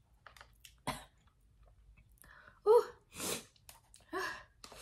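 A woman coughing a few times, short sharp coughs with the loudest near the middle, set off by the chili heat of spicy fire noodles.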